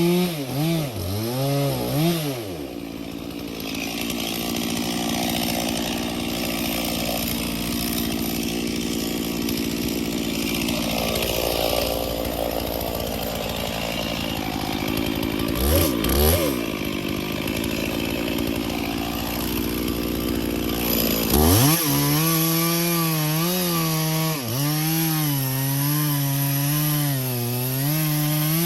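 Stihl chainsaw cutting cedar. Its engine revs high with a wavering pitch at first, then settles into a lower, steadier note while loaded in the cut for most of the stretch. It revs free briefly about halfway through and runs high again with a wavering pitch over the last seven seconds or so.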